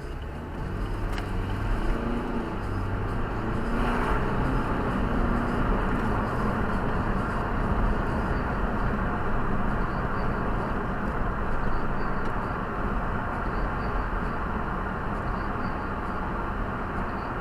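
Car engine and road noise, building as the car speeds up over the first few seconds, then a steady noise of the car cruising.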